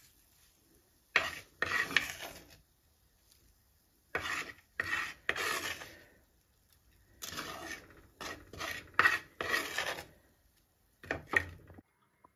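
A slotted ladle scraping along the bottom of an earthenware clay pot as fried dried anchovies are scooped out, in about four bursts of rasping strokes with short pauses between them.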